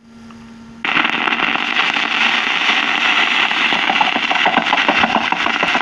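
Surface noise of a shellac 78 rpm record: a steady hiss and crackle with scattered clicks as the needle runs in the lead-in groove. It starts suddenly about a second in, after a faint low hum.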